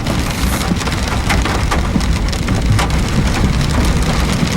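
Heavy rain falling in a storm: a steady wash of rain with many separate drop hits, over a low rumble.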